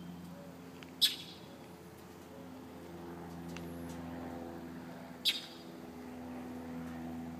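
A steady low mechanical hum, with two short sharp clicks, one about a second in and one about five seconds in.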